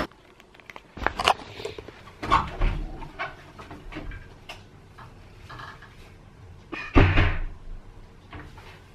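Cupboard doors and a door opening and closing, with scattered knocks and clatter of things being handled, and a louder thump about seven seconds in.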